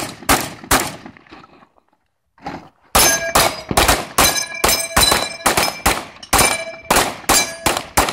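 Two rifle shots, a pause, then from about three seconds in a fast string of handgun shots, roughly three a second, each followed by the clang of a struck steel plate target ringing.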